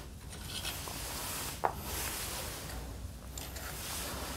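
Hands working bolts and parts loose on a small motorcycle engine: faint rubbing and scraping of metal, with one light click about one and a half seconds in.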